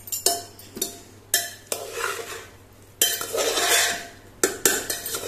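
A spoon scraping through cooked rice and knocking against the pressure cooker pot as freshly cooked pulao is stirred and fluffed. There are several sharp knocks, with longer scraping stretches after about a second in and again around three seconds in, and a quick run of knocks near the end.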